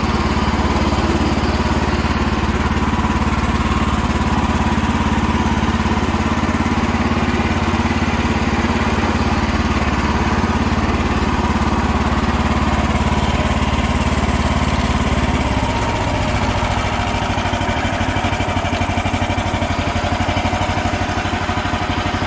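Engine of a 1966 Sears Suburban 12 garden tractor running steadily as the tractor drives, exhausting through a small lawnmower-type muffler. Its note drops lower about two-thirds of the way through.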